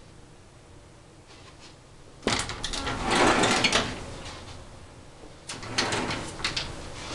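Louvered folding closet door being pushed open and shut, clattering and rattling twice: a longer bout about two seconds in and a shorter one near the end.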